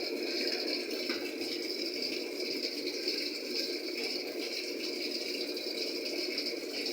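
Water running into the tub of a Panasonic top-load automatic washing machine as it fills for the wash cycle: a steady splashing gush.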